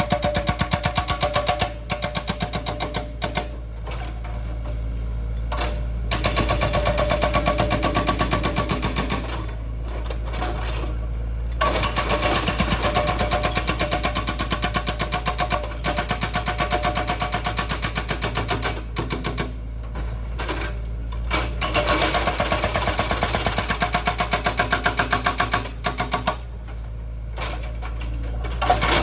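Heavy machinery: a rapid, even mechanical pounding over a steady low hum, easing off briefly several times and picking up again.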